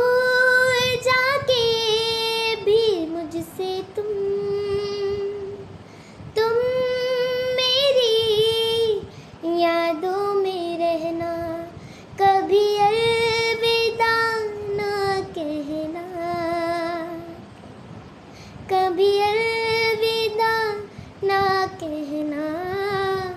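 A young girl's solo voice singing unaccompanied: long, wavering held notes in phrases of a few seconds, with short breaks between them.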